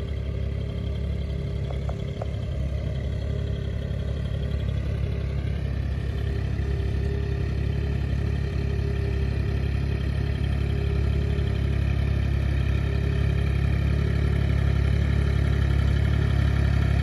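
Iseki 240 compact tractor's diesel engine running steadily under load as it pulls a four-row plough through the soil, growing gradually louder as it approaches.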